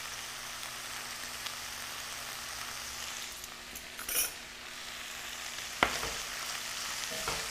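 Pork belly, squid and tofu strips sizzling as they stir-fry in hot oil in a skillet, stirred with a wooden spatula. There is a brief crackle about four seconds in and two sharp knocks near the end.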